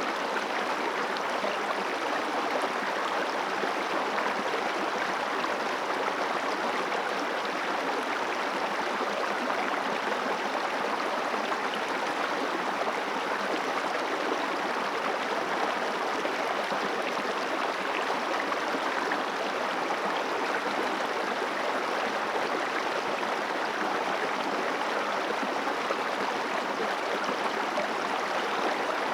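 River water flowing over stones, a steady rushing and babbling that does not change.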